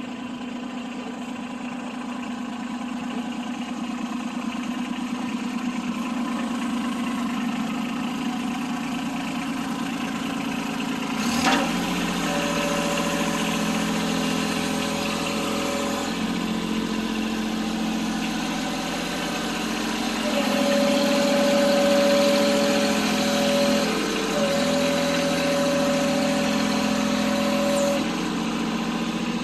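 Kubota B26 tractor's diesel engine running steadily. About a third of the way in the sound changes sharply, and after that a steady higher whine comes and goes in several stretches of a few seconds each.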